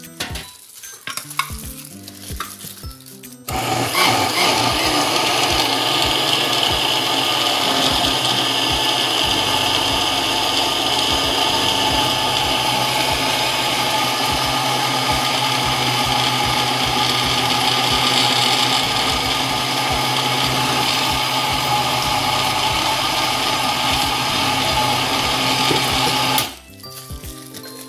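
Countertop electric blender running steadily for a little over 20 seconds, puréeing a thick red chili seasoning liquid for kimchi; it starts abruptly a few seconds in, after a few small knocks, and cuts off abruptly near the end.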